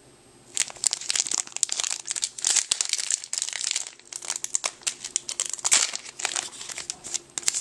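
Foil wrapper of a Yu-Gi-Oh! booster pack being torn open and crinkled by hand: dense, irregular crackling that starts about half a second in.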